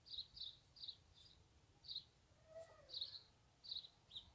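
Faint high-pitched chirping: about eight short chirps at uneven intervals, with a fainter, lower call about halfway through.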